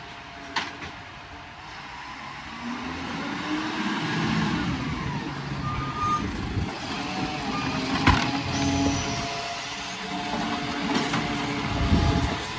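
Volvo side-loader garbage truck's diesel engine running as it pulls up and stops at the kerb, growing louder as it comes closer. A sharp clunk comes about eight seconds in, and the engine works harder near the end as the automated side arm lifts a wheelie bin.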